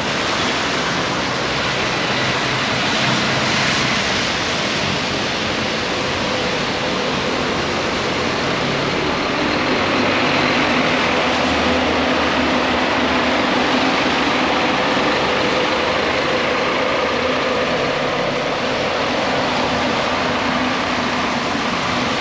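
Steady hiss of rain with a vehicle engine running underneath, a low, even hum.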